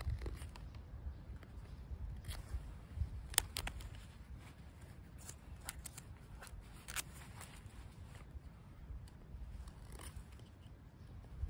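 Fixed-blade knife shaving thin curls off a wooden stick to make a feather stick: a series of short, irregular scraping cuts, the sharpest about three and a half and seven seconds in.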